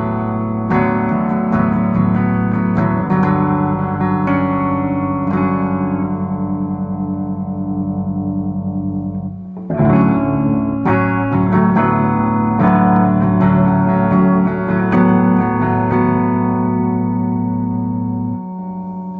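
Gibson SG electric guitar played through a Timmy-style overdrive pedal set as a clean boost with its EQ flat, into a 1973 Fender Super Reverb amp: picked notes and chords. There is a short break about halfway, and near the end a chord is left to ring.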